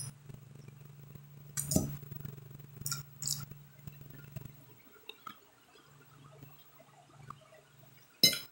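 Metal fork clinking against a glass plate in four sharp strikes: about two seconds in, twice around three seconds, and once near the end. Faint chewing of lettuce comes between them.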